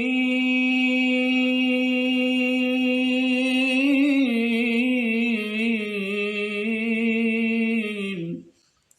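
A man's voice holding one long sung note at a middle pitch, nearly steady with a slight waver midway, dipping a little before it stops near the end. It is a test of his mid-range singing voice, which he finds already comfortable after the cucumber throat remedy.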